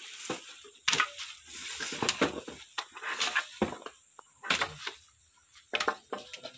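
Wooden planks knocking and scraping as loose boards are lifted, shifted and set back down: a run of irregular knocks with no steady rhythm.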